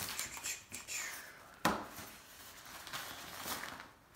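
Waterproof fabric utility panel being unfolded and shaken out: soft rustling of the material, with one sharp snap about one and a half seconds in.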